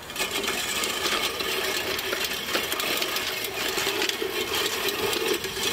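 Old rusty push reel mower rolling over grass, its spinning blades whirring and clattering in a fast, steady rattle.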